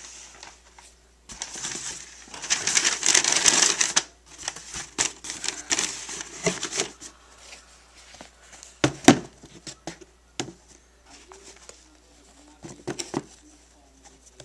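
Crinkling, rustling handling noise, loudest from about one to four seconds in, followed by scattered small clicks and knocks and one sharper knock about nine seconds in, as the sneakers and their packing are handled.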